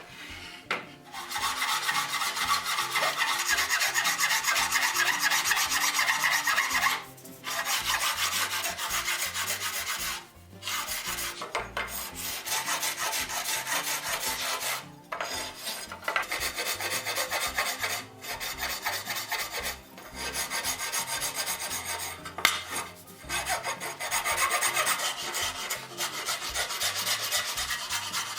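Hand rasp shaping wood: quick, scratchy back-and-forth strokes in runs of a few seconds, with brief pauses between runs.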